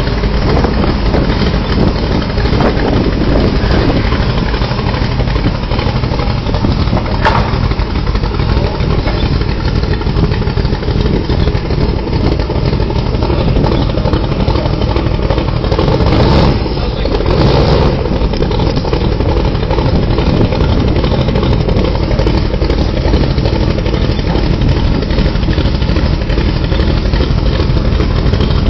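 Car engine running through an aftermarket GMMG cat-back exhaust, a steady loud exhaust note heard through a poor, muddy recording.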